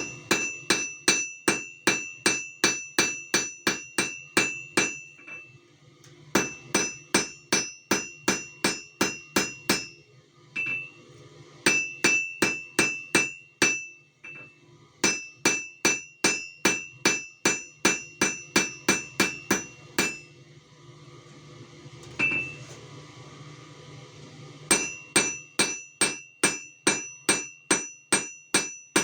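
Blacksmith's hammer striking hot steel on an anvil in quick runs of about three to four ringing blows a second. Several runs are separated by short pauses, and there is a longer gap with a single blow near the end before the last run starts.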